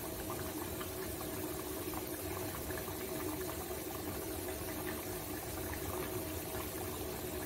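Potato pieces deep-frying in hot oil in a metal pot: a steady bubbling sizzle with scattered small crackles. A steady low hum runs underneath.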